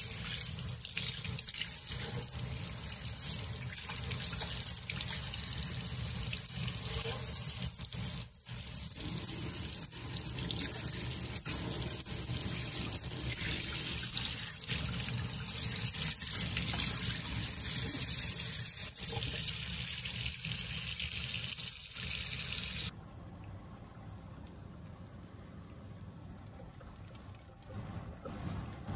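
Kitchen tap's pull-out spray head running water into a sink, a steady spray and splash while the sink is rinsed. It cuts off suddenly near the end, leaving only a faint low background.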